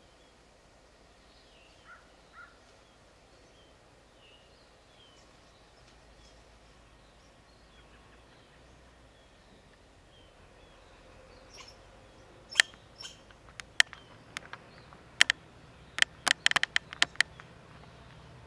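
Quiet woodland ambience with faint, scattered bird chirps, then, in the last six seconds, a loud, irregular string of sharp clicks or snaps, about a dozen, bunched closest together near the end.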